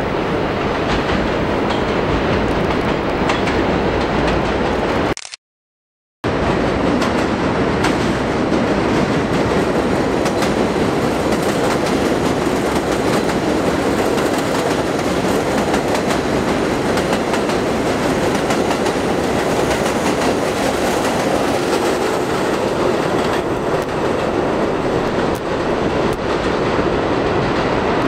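NYC Subway R32 train (stainless-steel Budd cars) running on elevated track, a loud steady rumble of wheels on rail as the cars pass close by. The sound cuts out completely for about a second roughly five seconds in, then resumes.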